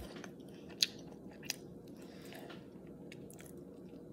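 Chewing a bar of milk chocolate with almonds, with a sharp crunch a little under a second in and a smaller one about half a second later.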